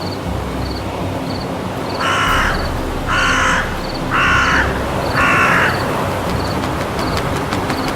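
A crow cawing four times, about a second apart, harsh and loud. Under it are a steady low rumble and a small high chirp repeating a little under twice a second.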